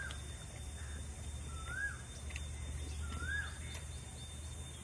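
A bird calling repeatedly outdoors: a short note that rises and then falls, three times about a second and a half apart.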